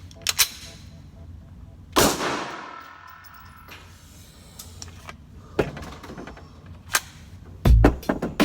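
Gunshots fired one at a time: several sharp cracks, the loudest about two seconds in with a long echoing tail, and more scattered through the rest.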